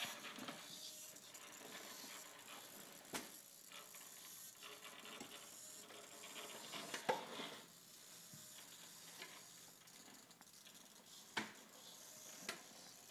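Venom Creeper RC rock crawler's small electric drivetrain whirring faintly as it crawls, with a few sharp knocks of tyres and chassis against the course boards, the sharpest about seven seconds in.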